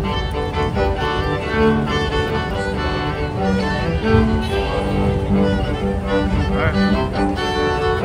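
Live violin and cello duet: two young street buskers bowing a melody together, the violin carrying the tune over the cello's lower sustained notes.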